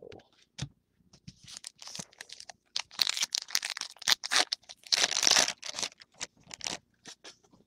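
A trading-card pack's foil wrapper being torn open and crinkled in the hands. Scattered crackles build to two louder rips, about three and five seconds in.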